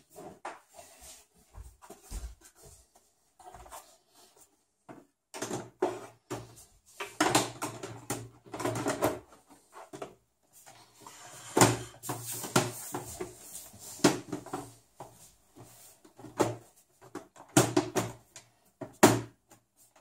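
Top cover of a Sony VAIO VGX-XL301 desktop case being handled, lowered onto the chassis and pressed into place: irregular clattering, scraping and knocking, with two sharp knocks, one about halfway through and one near the end.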